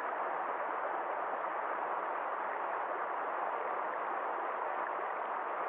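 Rushing stream flowing over rocks, a steady even rush of water.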